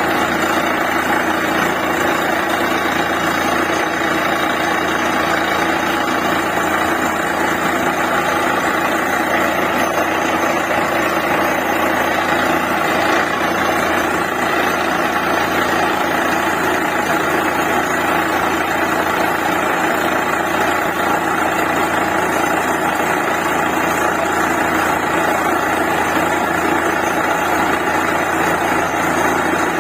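Truck-mounted DTH borewell drilling rig running steadily, its engine and machinery making a loud, even noise with no breaks.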